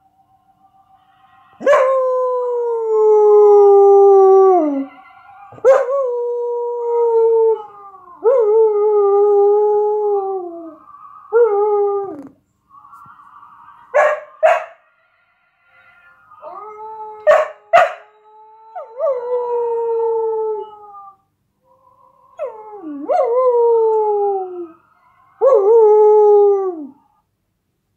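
A Samoyed howling along to a playback of her own howling: about seven long howls, each starting sharply and sliding down in pitch, with a few short, sharp yips in the middle.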